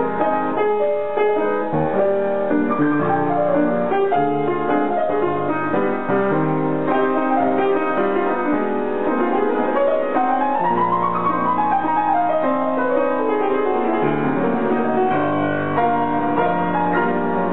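Grand piano being played, many notes sounding together. About halfway through, a quick run of notes climbs and then comes back down.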